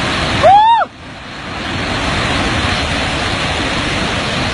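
Flash floodwater from a burst dam rushing past in a steady, loud roar of churning water. About half a second in, a person gives one brief loud cry that rises and falls in pitch.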